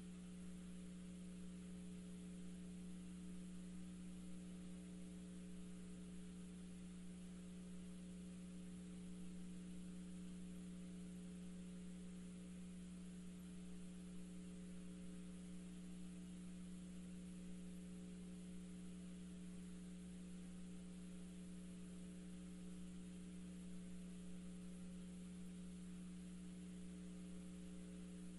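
A low, steady electrical hum with a faint hiss, unchanged throughout.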